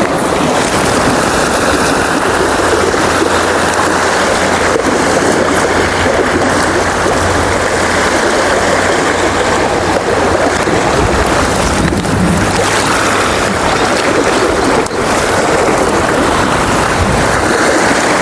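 Loud, steady wind rumbling on the microphone, over sea water washing against shoreline rocks.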